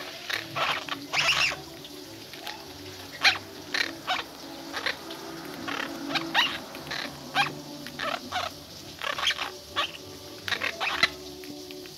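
Orange-fronted parakeets crunching and snapping a tortilla chip with their beaks: irregular sharp crackles, some single and some in quick clusters.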